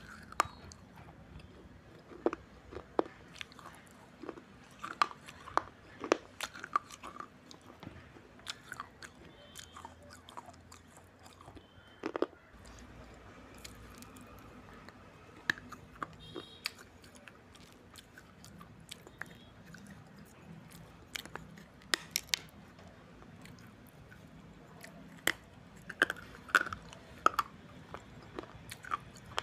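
Pieces of a baked red clay surai (water pot) being bitten and chewed: irregular sharp crunches, bunched in clusters, with quieter chewing between them.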